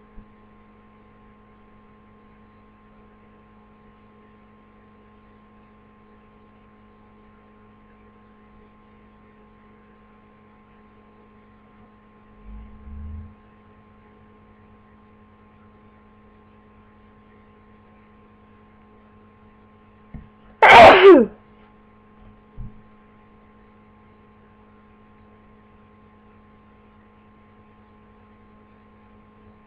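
A person with the flu sneezing once, sharp and loud, about two-thirds of the way in, over a steady electrical hum.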